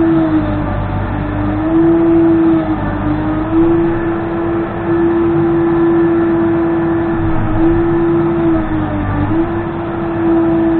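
Case 580N backhoe's diesel engine and hydraulics running hard and steady, the note sagging briefly in pitch several times as the machine takes load.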